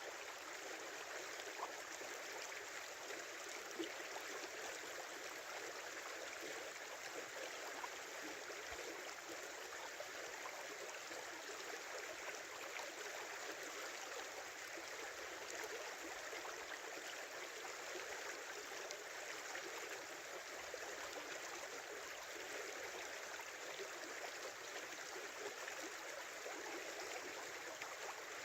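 Small river flowing and babbling over its bed: a steady, even rush of water with no breaks or changes.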